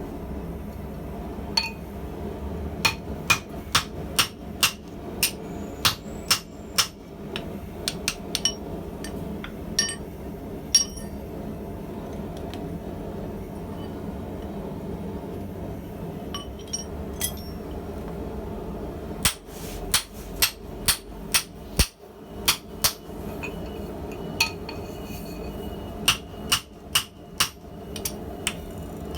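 Hand hammer striking hot steel on an anvil in runs of blows about two a second, each blow leaving a short metallic ring, with pauses between the runs: forging a steel claw hammer head. A steady low background noise runs underneath.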